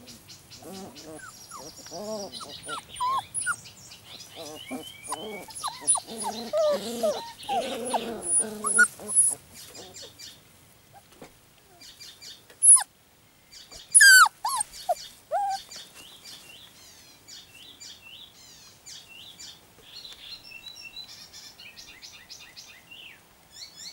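4½-week-old puppies growling, whining and yipping in rough play, then two sharp, high yelps about halfway through, the loudest sounds. Small birds chirp faintly throughout.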